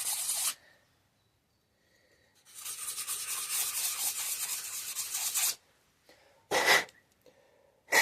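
Sandpaper rubbed by hand over a surface in quick back-and-forth strokes, roughening it to an even finish. There is a short burst at the start, then about three seconds of steady sanding after a pause, then two brief, louder strokes near the end.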